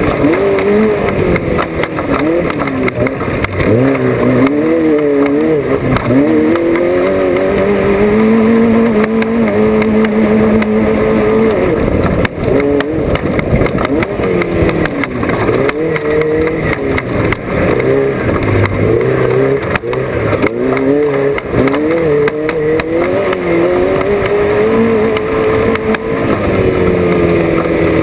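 Off-road race vehicle's engine run hard, its pitch rising and falling again and again as the driver works the throttle, with a steadier held stretch about a third of the way in.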